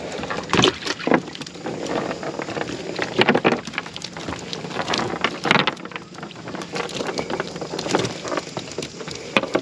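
Irregular splashes and knocks of live bait fish being sorted from a cast-net catch: fish flapping and dropping into the live well or back into the water.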